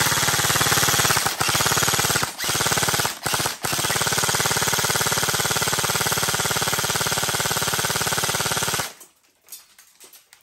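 Airsoft rifle firing on full auto at a riot shield, a long rapid stream of shots with BBs striking the shield. It breaks off briefly a few times in the first four seconds and stops about nine seconds in.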